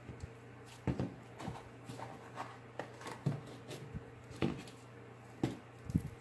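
Clay slime squeezed and kneaded by hand: an irregular string of short sticky clicks and squishes, with a few louder pops.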